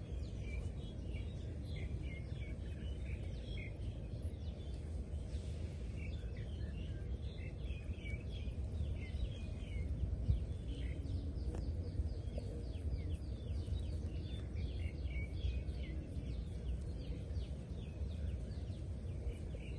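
Many small birds chirping in quick short calls throughout, over a steady low rumble.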